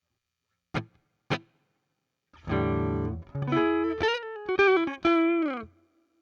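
Electric guitar through a Zoom G2 Four's Fender Deluxe Reverb amp simulator: two short muted plucks, then a ringing chord and a lick of single notes with bends, ending with a slide down.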